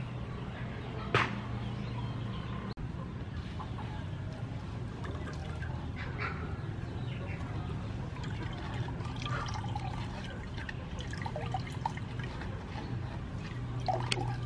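Wet grated coconut being wrung by hand, and coconut milk trickling through a plastic strainer into a clay pot, over a steady low background hum.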